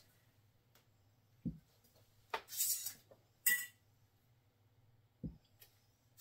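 Metal screw bands being twisted off sealed glass pint canning jars, with short scrapes and a light metallic clink a couple of seconds in, and two dull thumps as jars are set down on a towel-covered table, one about a second and a half in and one near the end.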